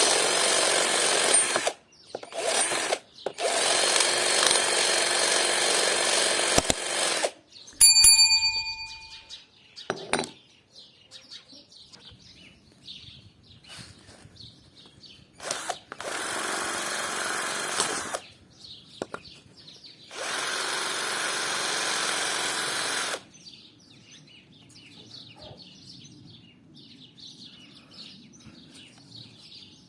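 Drill spinning a homemade sandpaper disc, run in five bursts of one to four seconds that start and stop abruptly. A single ringing ping about eight seconds in, and faint bird chirps in the quieter last few seconds.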